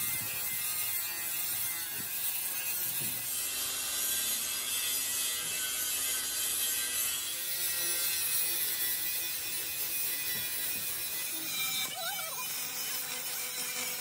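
Steady mechanical workshop noise, a continuous hiss with faint steady tones and no clear strokes.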